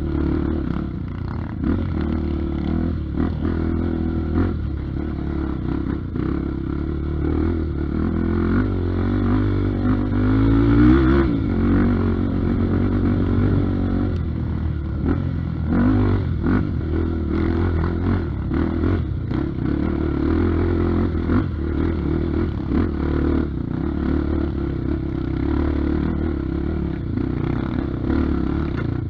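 Honda Tornado trail bike's single-cylinder four-stroke engine running as it rides a rough dirt trail, rising in pitch about ten seconds in. In the second half the bike clatters and knocks over rough ground.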